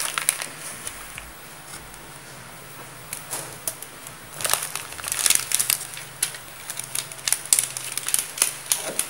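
Pot of vegetarian congee with mushrooms, tofu and bamboo shoots simmering on very low heat, its bubbles popping in irregular clicks and crackles that come in spells.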